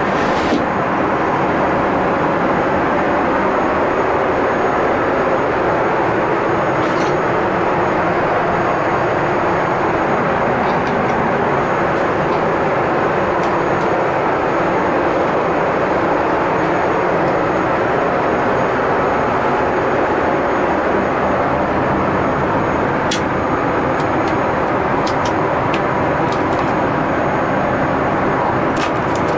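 Steady rushing cabin noise inside a Boeing 747-8i airliner, with a few faint clicks and taps of compartment lids and a drawer being handled, most of them near the end.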